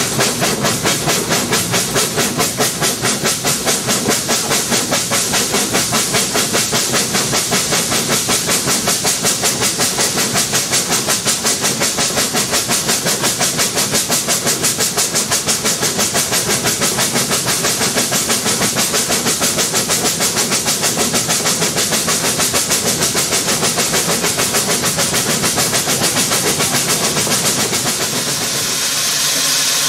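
Narrow-gauge steam tank locomotive 'The Countess' working a train, its chimney exhaust beating fast and evenly with the rail noise of the moving train. Near the end the beats die away and a steady hiss of escaping steam takes over.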